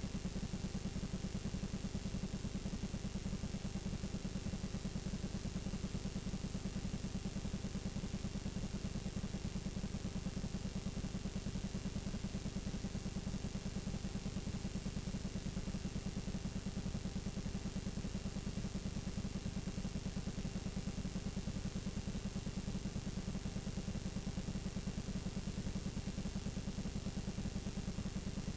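Steady low buzz and hiss from a blank, unrecorded stretch of videotape playing back as static, with a thin high whine over it.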